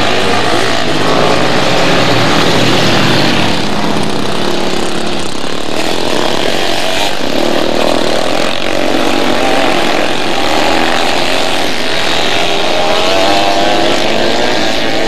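Motorcycle engines racing on a dirt track, several bikes at once, their revs rising and falling as they power through the turns.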